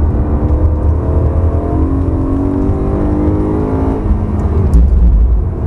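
BMW M3 engine at full throttle on a race track, revs climbing steadily from about 4,500 to over 6,000 rpm, heard from inside the cabin. The pitch falls away about four seconds in as the revs drop.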